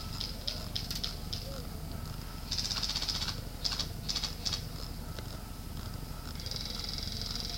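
Airsoft guns firing: scattered single shots, a short rattling burst about two and a half seconds in, and a longer full-auto burst near the end.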